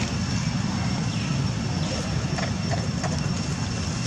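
Steady low rumble of outdoor background noise with a faint continuous high tone over it and a few faint short chirps.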